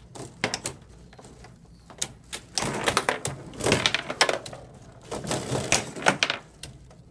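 Foosball table in play: sharp clacks and knocks of the ball struck by the plastic player figures and of the rods banging against the table. Clicks are scattered at first, with busy flurries from about two and a half to four and a half seconds in and again around five to six seconds.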